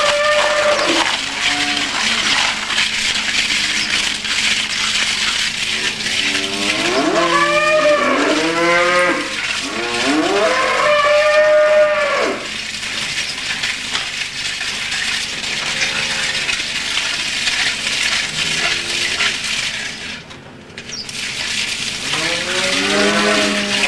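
Cattle mooing repeatedly: several drawn-out calls that rise and fall in pitch, some overlapping, over a steady background hiss.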